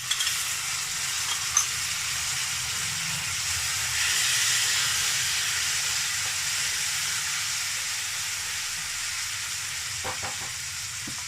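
Boiled chickpeas dropped into hot mustard oil with fried onions, sizzling in the pan. The hiss starts suddenly, swells about four seconds in and slowly dies down, with a couple of light knocks near the end.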